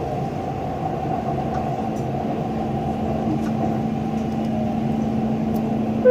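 Inside a Dubai Metro train car running between stations: a steady rumble of the moving train, joined about two and a half seconds in by a steady low hum.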